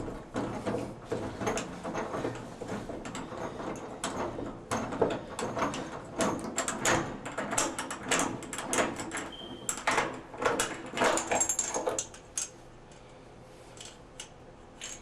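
A tub-and-shower socket wrench working the shower diverter stem out of an old three-handle valve: an irregular run of metal scrapes, clicks and knocks that stops about twelve seconds in.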